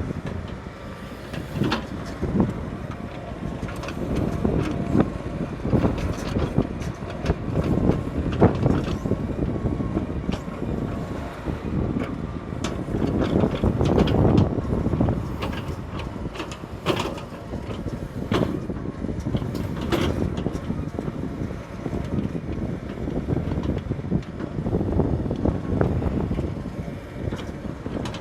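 Heavy diesel machinery running steadily, with frequent sharp knocks and clanks over it.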